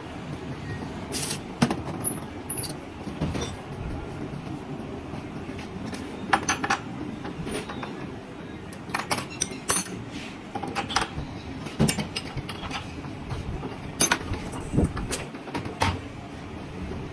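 Metal tools and small metal parts clinking and tapping against each other, a dozen or so sharp clicks at irregular intervals over a steady low hum.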